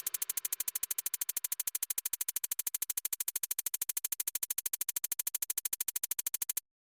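A rapid, even electronic pulse from a synthesizer music track, about ten sharp clicks a second, that cuts off suddenly near the end.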